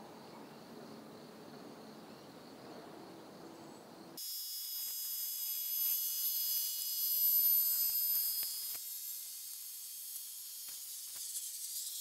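Faint outdoor background, then about four seconds in a chorus of insects cuts in suddenly: a high, steady, shrill trilling made of many thin tones, with a few faint clicks near the end.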